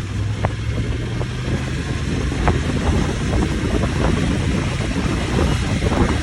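A vehicle driving over rough, unpaved ground: a steady low engine drone under rumbling road noise, with scattered knocks and rattles.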